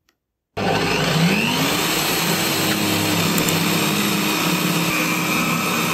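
Benchtop drill press switched on: its motor starts about half a second in, rises in pitch as it comes up to speed, then runs steadily.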